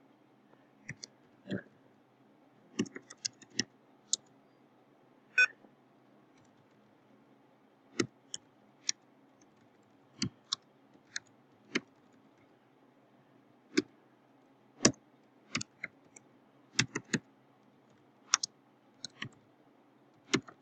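Computer keyboard keys being typed slowly, single sharp keystroke clicks at uneven intervals with short pauses between words.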